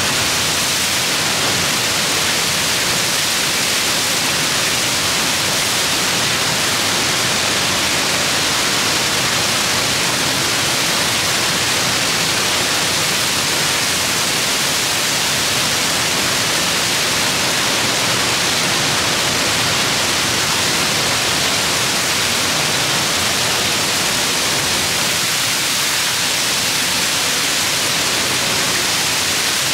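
Niagara's Horseshoe Falls pouring down just outside a rock tunnel portal: a steady, loud, hissing rush of falling water that never lets up.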